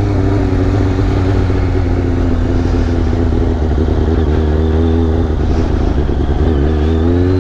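Motorcycle engine running at low speed, its pitch sagging slowly as the bike rolls on light throttle and then climbing again near the end as the throttle opens.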